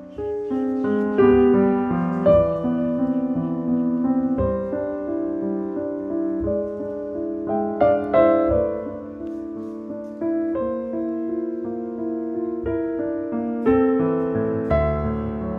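Piano music: a slow piece of sustained notes and chords, a new chord struck every second or two.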